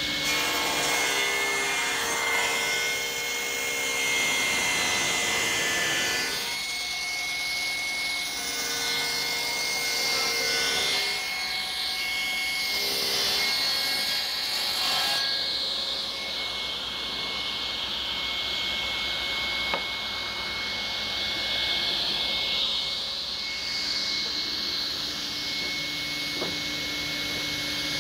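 Sliding table saw running with a steady high whine, its sound changing over several stretches of a few seconds as boards are ripped lengthwise into strips.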